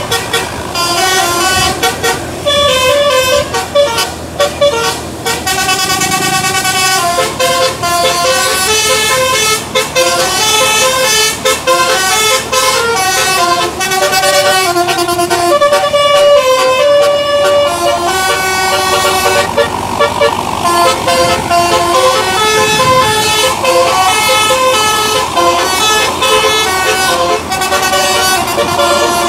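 Tour bus's basuri musical air horn (telolet) playing a tune, one held note stepping to the next without a break.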